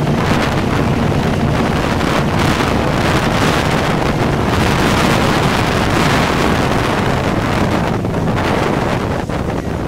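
Twin Mercury 496 HO V8 sterndrive engines of a 36 ft Pantera offshore powerboat running at high speed, a steady low hum under loud wind buffeting the microphone and rushing spray. The engine hum fades about eight and a half seconds in, and the whole sound eases slightly near the end.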